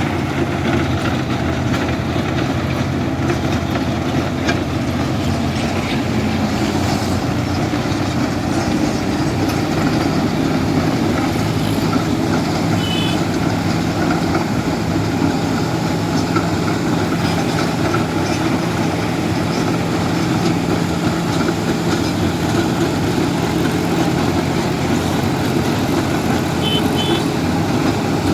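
Road milling machine working on bituminous asphalt, its engine and cutting drum running steadily. Short high beeps sound twice, about 13 seconds in and near the end.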